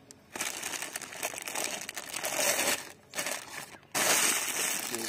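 A thin clear plastic bag crinkling and rustling as it is handled, in three stretches with brief pauses between them.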